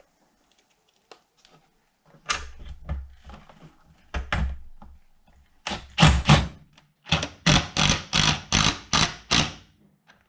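Hard knocks and thuds from hands-on work on saddlebag latch hardware: a few scattered thumps, then a run of about seven evenly spaced blows, roughly three a second, near the end.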